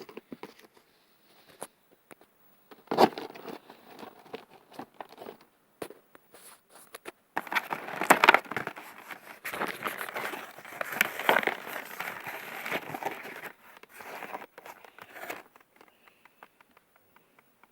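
Packaging being crinkled, crackled and torn open by hand as a delivered parcel is unpacked, in two bursts: a short one about three seconds in, then a longer, louder stretch from about seven to fifteen seconds in.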